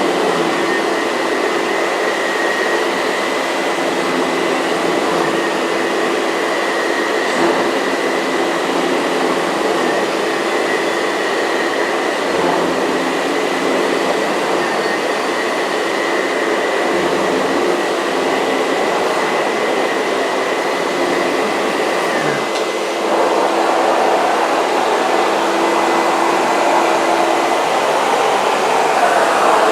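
Miele S234i canister vacuum with a Sebo ET-1 electric powerhead running steadily while vacuuming, a constant motor whine over the rush of air and brush roll. About 22 seconds in the whine stops and the sound turns louder and rougher.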